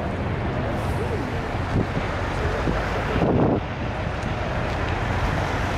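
Steady outdoor rumble of city traffic mixed with wind buffeting the microphone, with a brief louder rush about three seconds in.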